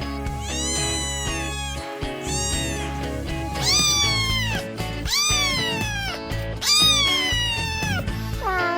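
A kitten meowing five times in long calls that rise and then fall in pitch, over background music.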